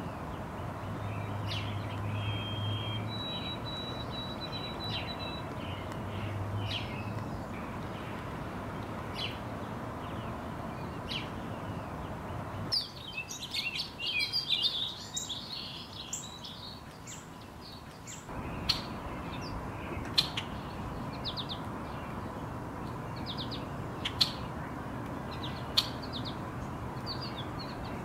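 Small songbirds calling: scattered sharp chip notes throughout, two thin whistled notes a few seconds in, and a burst of rapid twittering about halfway through.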